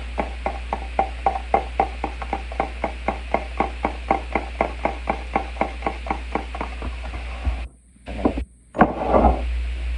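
A metal fork beating a liquid mixture in a plastic container, clicking against it in a quick even rhythm of about five strokes a second. The beating stops about three-quarters of the way in, followed by a brief louder rustle.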